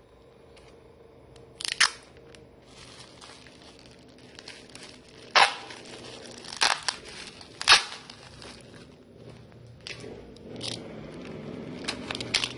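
Clear packing tape being pulled off the roll in several short, sharp rips while a plastic-wrapped parcel is taped up, with plastic crinkling in between.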